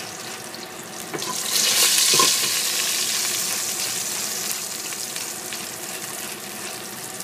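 Green onion and garlic sizzling in hot oil in a stainless steel pot. The sizzle swells sharply about a second and a half in, then slowly dies back down.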